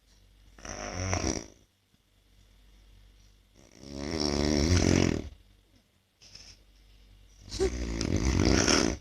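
A man snoring in his sleep, three loud snores about three and a half seconds apart, with quieter breaths between them; the middle snore is the loudest. He is wearing two anti-snoring devices together, and the snoring goes on regardless.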